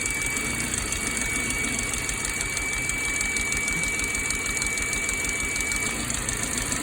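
2006 Ford Focus four-cylinder engine idling rough, with a steady high whistling over it that fades briefly near the end. The whistle is a vacuum leak: air being sucked through a hole in the PCV hose, the cause of the rough idle.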